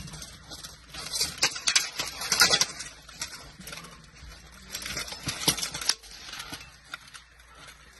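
Steel swords clashing against steel plate armour and shields in two quick flurries of strikes, one about a second in and another around five seconds in.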